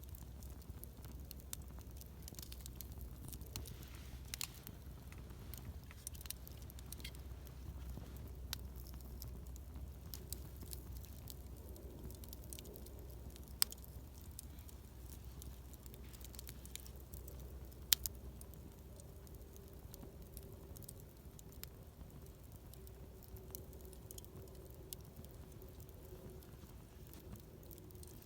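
Wood campfire crackling, with many small scattered pops and two sharper, louder pops, one a little past halfway and one about two-thirds in.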